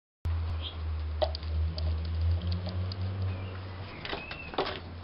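Low rumble of wind on the microphone, with scattered light knocks and scrapes as a small plastic bucket on a rope is hauled up the side of a deck, the knocks thickening near the end.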